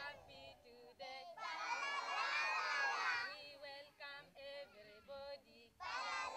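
A group of young children singing together; about halfway through, the singing breaks into short separate syllables.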